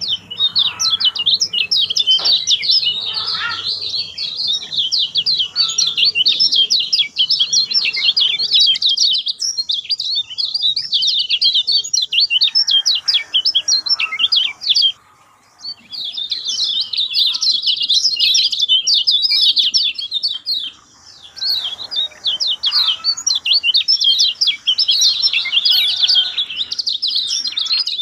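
A flock of lemon-bellied white-eyes (kecial kuning) chirping and twittering together in a dense, rapid chorus, with a brief pause about halfway through.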